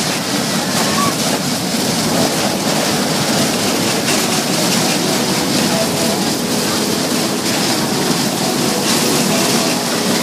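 Matterhorn fairground ride running at full speed: a steady, loud rushing noise as its cars sweep round past the platform.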